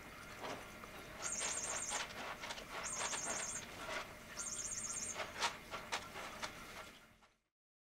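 Soft rustling and handling noises with three short, high, rapid trilling chirps about a second and a half apart; the sound then fades out near the end.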